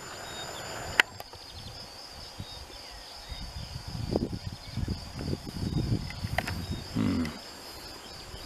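Crickets trilling steadily in the grass, under the low, irregular thuds of someone walking on a dirt track. A sharp click comes about a second in.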